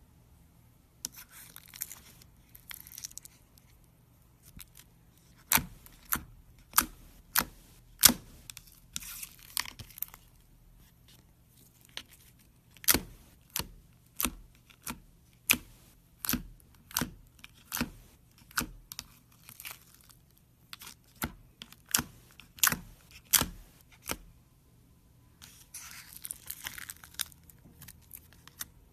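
Fingers squeezing and poking glossy slime in a bowl. In the middle there is a run of sharp wet pops and clicks, about two a second. Near the start and again near the end there are stretches of crackly crinkling.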